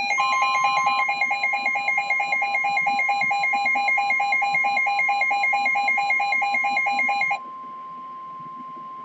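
Weather warning alert tones: a rapid pulsing electronic alarm beep, which stops about seven seconds in, sounds over one steady high tone, the NOAA Weather Radio warning alarm tone. The steady tone carries on alone for a couple of seconds more. Together they signal that an urgent severe-weather warning broadcast is about to follow.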